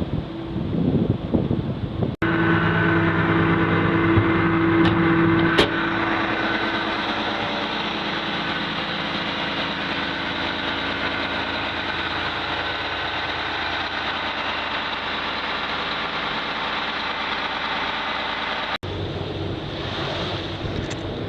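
Diesel engines of a large motor trawler running steadily, a continuous hum with steady tones. The sound changes abruptly about two seconds in and again near the end, where the engine tones are strongest and then settle to an even drone.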